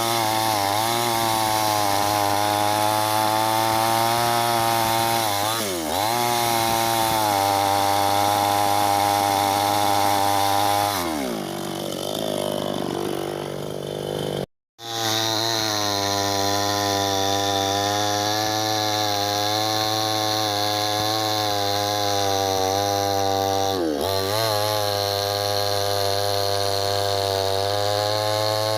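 Chainsaw running at high speed while cutting wood, its pitch dipping briefly a few times under load. About 11 s in it winds down, then after a sudden break it is running fast again.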